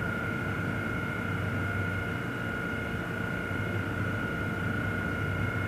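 A steady, unbroken drone: a constant high-pitched whine over a low rumble.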